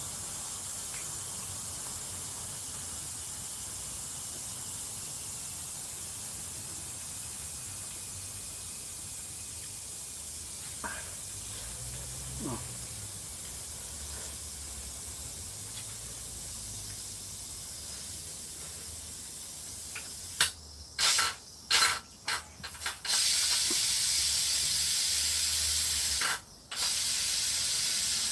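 Pressure cooker venting steam as the pressure is let out, with the chicken porridge inside finished. A soft steady hiss runs until, about 20 seconds in, a few sputtering spurts break out and then give way to a louder continuous hiss, which cuts off briefly once near the end.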